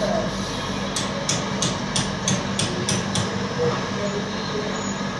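Steady background hum, with a run of about eight light, evenly spaced clicks, roughly three a second, lasting about two seconds.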